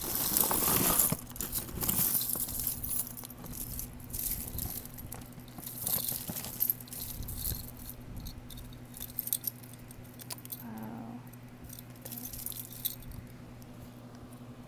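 A jumble of costume jewelry, beaded necklaces and metal chains and pieces, clinking and rattling as a hand rummages through the bin. It is densest and loudest in the first couple of seconds, then thins to scattered clicks.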